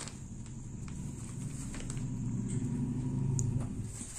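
A vehicle's low engine rumble, growing louder for about three seconds and dropping away near the end as it passes.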